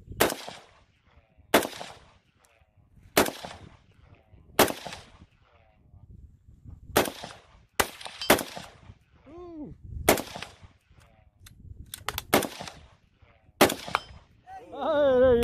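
AR-style semi-automatic rifle fired in single shots, about a dozen, spaced unevenly one to two seconds apart, with a quick run of three shots about twelve seconds in. Each shot has a short echo. A man's voice calls out briefly near the end.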